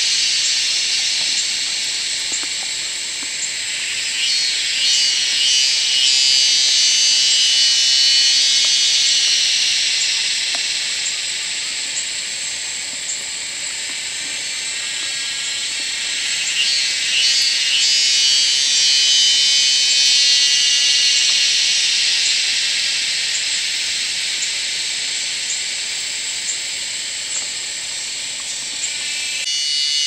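Loud, dense chorus of cicadas buzzing, swelling and fading slowly twice.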